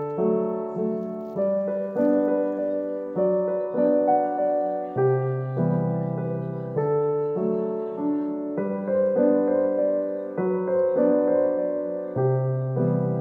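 Background piano music: a gentle melody of struck notes, each fading before the next.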